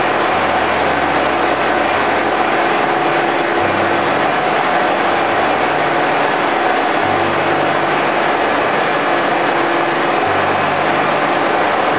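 Engines of a tin-mining suction boat running steadily in a loud, unbroken drone. Its low rumble shifts up and down every couple of seconds.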